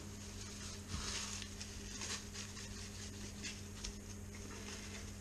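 Cling film crinkling and rustling in faint, irregular crackles as a seared fish loin is wrapped tightly in it and rolled between the hands, over a steady low hum.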